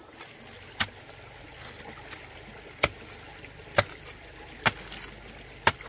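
Sharp knocks, five in all, about a second apart, over a steady hiss of running water.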